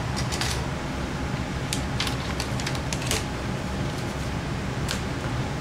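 Light clicks and taps from handling a bare laptop LCD panel, its metal frame knocking lightly as it is brought onto the chassis, over a steady low hum.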